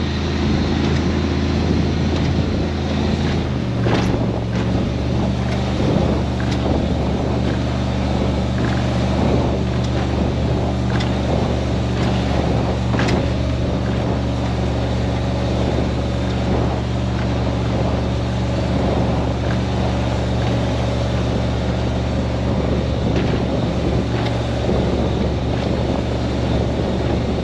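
27-foot Baja powerboat's inboard engine running steadily under way, over a constant rush of wind and water past the hull. The engine note changes about three and a half seconds in.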